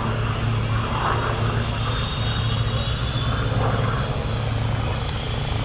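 Hawker Hurricane's Rolls-Royce Merlin V12 engine and propeller droning steadily as the fighter flies overhead.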